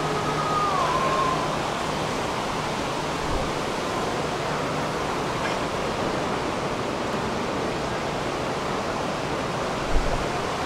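Steady rushing background noise, with a short tone falling in pitch about a second in and a brief low thump near the end.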